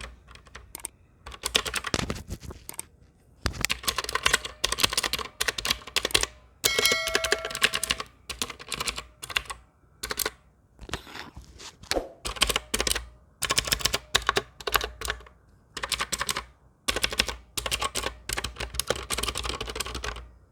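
Typing on a mechanical keyboard with Outemu Blue clicky switches, rapid sharp clicks in bursts of a second or two with short pauses between them. A brief ringing tone sounds once, about seven seconds in.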